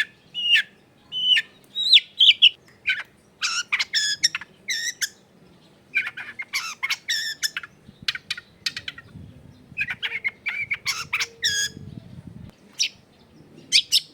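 Long-tailed shrike (cendet) singing: bursts of quick, sharp chattering notes mixed with short whistled calls, broken by pauses of a second or two.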